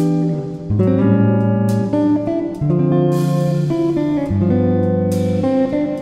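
Background music led by guitar, its chords changing every second or two.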